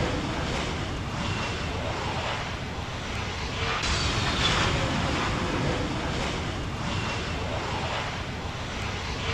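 Airbus A320neo airliner's jet engines passing overhead on final approach: a steady rushing noise with a low rumble and a high engine whine that slowly falls in pitch as it goes by.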